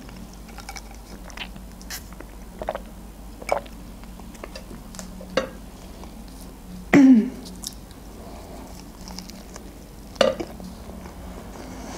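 Close-up mouth sounds of a person eating shawarma: soft wet chewing clicks throughout, with a brief louder sound about seven seconds in and another about ten seconds in as she bites into the wrap.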